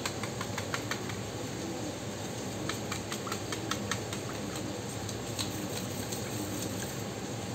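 Wire whisk beating thin tamarind liquid with spice powders in a stainless steel bowl: quick, irregular clicks of the wires against the steel as it swishes through the liquid, busiest around the middle.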